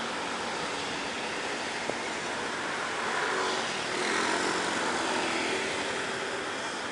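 Steady city traffic and road noise heard while riding along in traffic. It grows louder from about three seconds in, with an engine hum as motorcycles ride close alongside.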